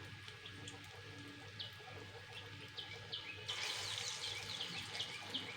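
Faint sizzling of chana dal fritters (fuluri) frying in hot oil in a kadai, growing louder about three and a half seconds in, with birds chirping repeatedly in the background.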